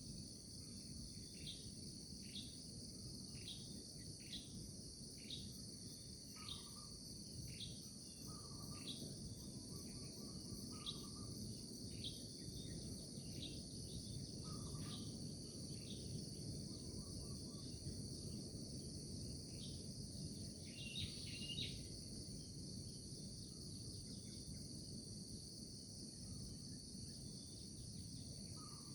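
A steady high-pitched chorus of insects, crickets by their sound, with a bird giving short repeated chirps about once a second through the first half, thinning out later, over a low background rumble.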